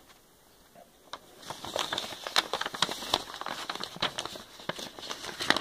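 Packaging being unwrapped by hand: crinkling, rustling and a quick run of small crackles and clicks, starting after a quiet first second.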